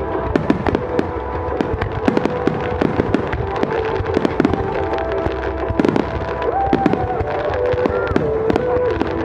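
Fireworks going off in a dense barrage: many sharp bangs and crackles every second over a continuous low rumble. Held tones that step in pitch a few times sound underneath.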